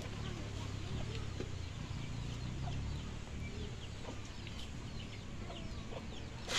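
Chickens clucking faintly, with scattered short chirps over a low steady rumble.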